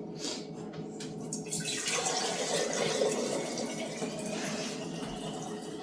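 A couple of light knocks, then liquid poured steadily into a container from about two seconds in, its pitch rising slowly as the container fills.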